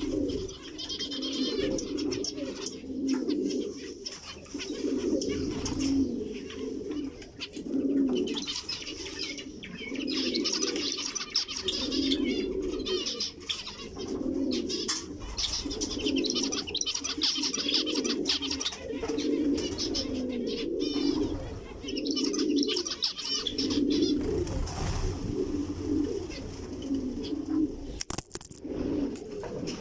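Doves cooing over and over, a low coo about every second, while zebra finches chirp in high, quick bursts at intervals.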